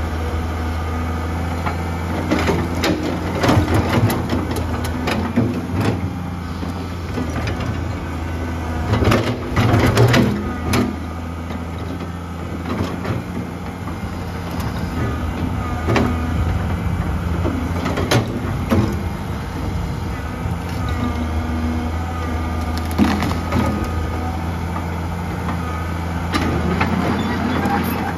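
1987 Komatsu PC200-3 hydraulic excavator at work. Its diesel engine runs steadily under load while the bucket digs and rips at soil and a tree stump, giving irregular sharp cracks, knocks and scraping. The loudest cluster comes about ten seconds in.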